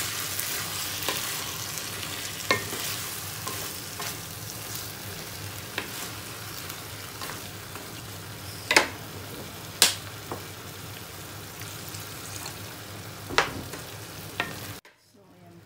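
Moringa pods and tomatoes sizzling in a frying pan while a wooden spatula stirs them, with a few sharp knocks of the spatula against the pan. The sizzle eases slightly over time, and the sound cuts out for about a second near the end.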